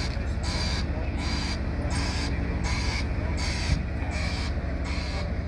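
Heavy diesel machinery running steadily, with a rhythmic hissing pulse repeating about every three-quarters of a second.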